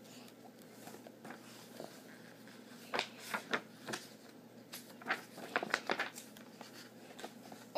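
Faint handling noise: a scattered run of light clicks and rustles from a child moving about and handling a picture book close to the microphone, bunched in the middle of the stretch.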